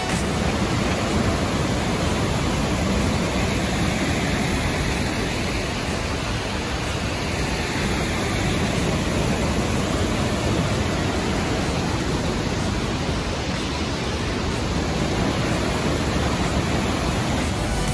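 Burney Falls waterfall: a loud, steady rush of falling water pouring into the pool below.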